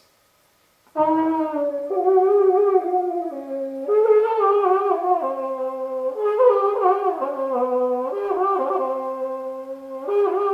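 French horn played with all three valves pressed halfway down: an eerie half-valve effect like Chewbacca noises. After about a second of silence it sounds a string of wavering notes that slide and bend in pitch.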